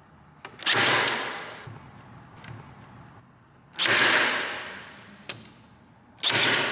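Ryobi 18V ONE+ Compression Drive 3/8in crown stapler firing three times at its minimum force setting, about three seconds apart. Each shot comes on suddenly and fades over about a second, with a faint click just before it.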